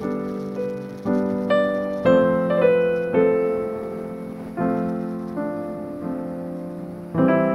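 Background music: piano chords, each struck and then fading away.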